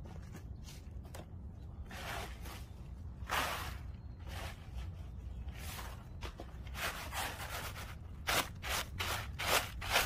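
Woven bamboo winnowing basket scraping and scooping through dried acorns on a mat, the acorns and loose shells rattling and swishing in it. From about seven seconds in, it is shaken in quick strokes, about three a second, as the acorns are winnowed.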